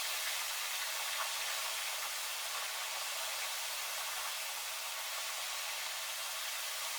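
Rain falling, a steady, even hiss.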